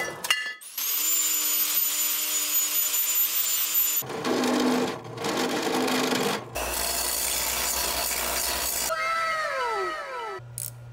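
Power tools machining rusty square steel tubing: a metal-cutting saw running through the tube with a steady high whine, then a drill press boring holes in it with a step bit. About nine seconds in a motor winds down with a falling whine, followed by a low steady hum.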